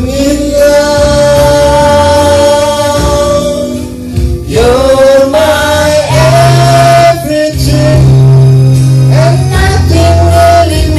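A man singing into a handheld microphone over a karaoke backing track with a steady bass line. He holds one long note for about four seconds, then sings a run of shorter held notes.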